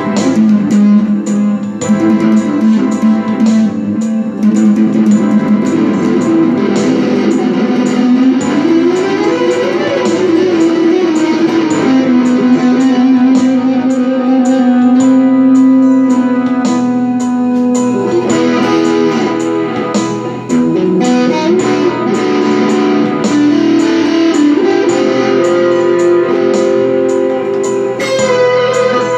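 Fender Stratocaster electric guitar played with a slide: long sustained notes that glide up and down in pitch, with a slow rise and fall about eight to ten seconds in.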